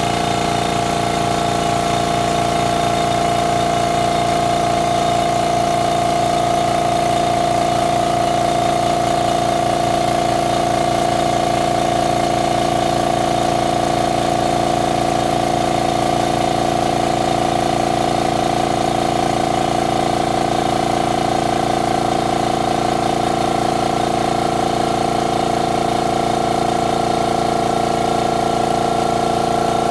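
Makita MAC700 oil-lubricated air compressor running steadily with its air valve shut, pumping up its tank. It is a continuous, even hum with no pauses: the compressor is building tank pressure toward its cut-out.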